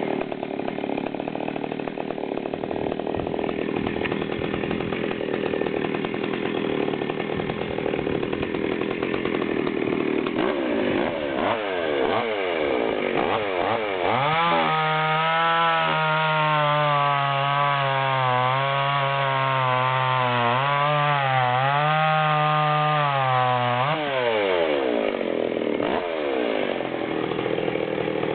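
Stihl 020 AV Super chainsaw's two-stroke engine running and being revved up and down. Halfway through it is held at high revs for about ten seconds, then drops back.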